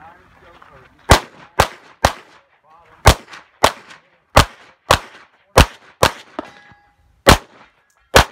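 A pistol fired rapidly, eleven shots, mostly in quick pairs about half a second apart with short gaps between pairs. A faint ringing tone hangs after the later shots.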